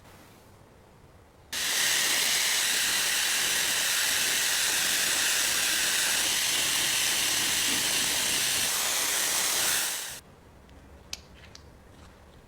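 Aerosol spray can spraying in one long, even hiss of about eight seconds that starts and stops abruptly. A few faint clicks follow.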